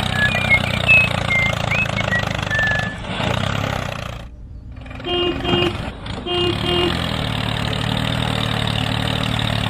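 Diesel tractor engine running steadily, dropping away briefly about four seconds in. A horn beeps twice in quick succession about five seconds in and again about a second later, and a few short high chirps sound near the start.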